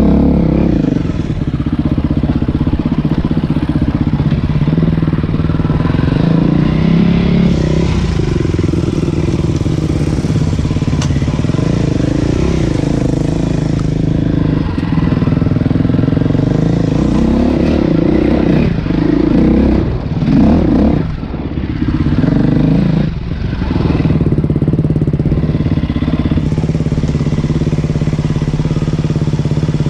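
Dirt bike engine running under varying throttle on a trail ride, its pitch rising and falling. The rider backs off the throttle twice in quick succession about two-thirds of the way through.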